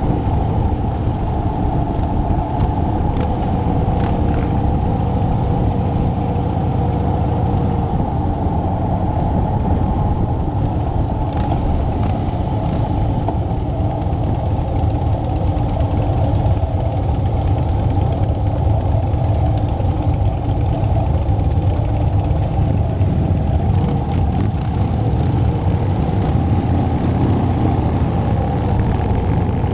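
Motorcycle engine running steadily while riding at road speed, heard muffled.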